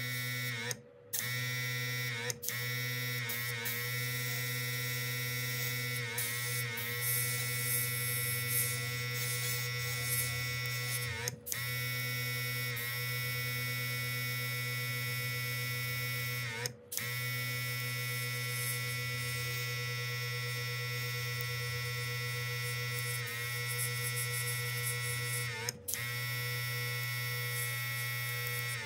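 RIBO/I-Beautee cordless mini airbrush compressor running steadily with a high motor whine, along with the hiss of air from the airbrush as paint is sprayed. Its pitch wavers now and then, and it cuts out briefly four times.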